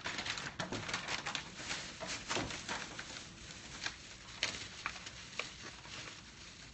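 Plastic bag handled and crinkling, with scattered light clicks and rustles, dense for the first couple of seconds and then sparse.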